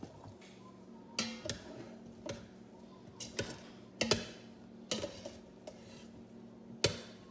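A metal spoon clinking and scraping against the stainless inner pot of an Instant Pot while the cooked rice is stirred: about seven sharp clinks with a short ring, at irregular intervals, over a faint steady hum.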